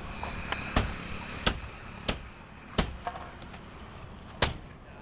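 A series of sharp knocks on construction work, five in all, falling roughly every two-thirds of a second with a longer pause before the last.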